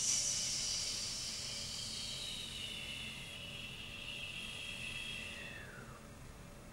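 A hiss that starts suddenly, carrying several high tones that slowly slide down in pitch and fade out after about six seconds.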